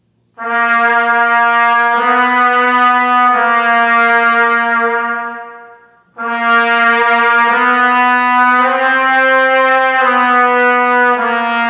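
Trumpet playing two long slurred phrases, each starting on a sustained written C (concert B-flat) and stepping up by half steps, then back down to the starting note: a chromatic exercise built outward from a good C. A short breath gap about six seconds in separates the phrases.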